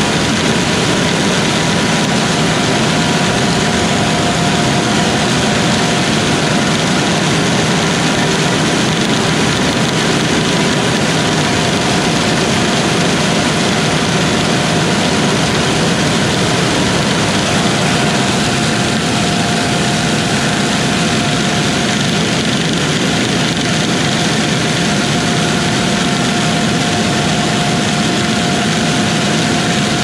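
Steady, loud machine noise with a faint steady whine over it, unchanging throughout.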